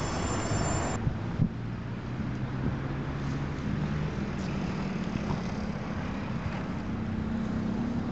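Freight train in a station: high-pitched wheel squeal for about the first second, cut off suddenly, then the low, steady drone of a diesel locomotive engine that rises a little in pitch near the end, with wind on the microphone.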